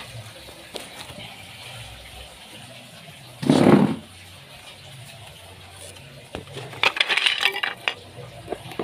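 Cut photo-frame moulding strips clinking and clattering as they are handled and set down, in a quick cluster of sharp knocks near the end. A little over a third of the way in there is a brief, loud, muffled thump of handling.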